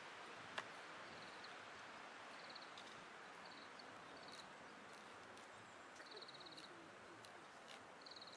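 Faint, steady wind-in-forest hiss, with one sharp click about half a second in and several short, high, rapidly pulsed trill calls from a small animal scattered through it.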